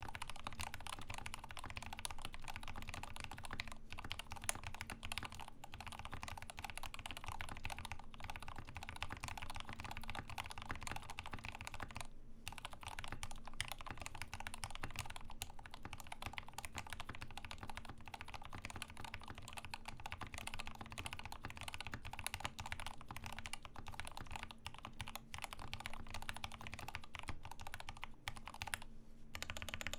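Fast, continuous typing on a Rama M65-B mechanical keyboard with Gateron Ink switches, keystrokes clattering in a dense run with short pauses about twelve seconds in and just before the end.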